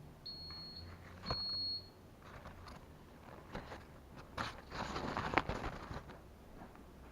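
Two high electronic beeps, each about half a second, with a sharp click about a second in, followed by several seconds of rustling and clicking handling noise.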